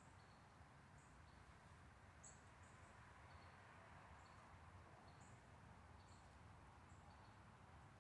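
Near silence outdoors: a faint, steady low background with short, high-pitched chirps about once or twice a second.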